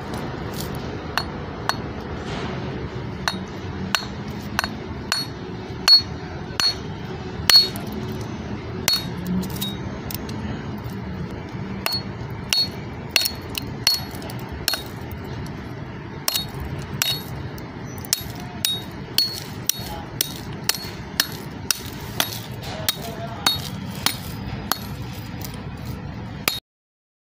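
Sharp metallic clinks and taps, irregular and about one or two a second, of a metal tool striking an 11 kV HRC fuse's cartridge and end caps as it is broken open. The sound cuts off suddenly near the end.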